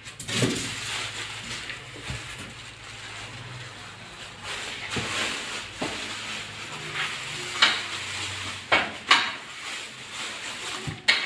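Clear plastic wrapping crinkling and rustling as it is pulled away by hand, with several sharp crackles in the second half.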